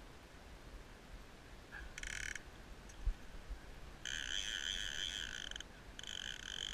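Fly reel's click-check ratchet buzzing in bursts as a hooked Atlantic salmon pulls line off: a short run about two seconds in, then longer runs from about four seconds on.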